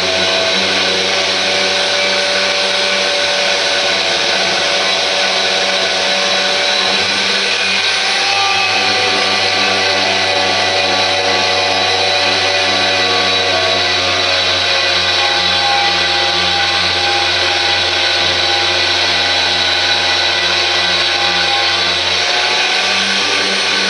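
Handheld power tool with a wire brush running steadily while stripping paint off pulley brackets: a constant motor whine over the hiss of the bristles on the metal.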